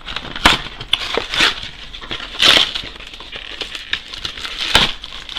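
A 2016 Donruss Elite trading-card box being torn and crushed by hand to get the packs out, in a run of sharp cardboard rips and crunches with rustling between. The loudest come about half a second in, halfway through and near the end.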